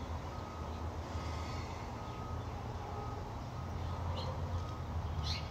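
Backyard ambience: a steady low hum with a faint high tone that comes and goes, and two brief bird chirps near the end.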